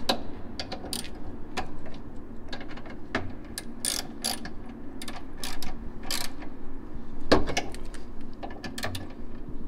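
Hand ratchet wrench clicking in short, irregular runs as a nut under the car is turned with a socket on a long extension.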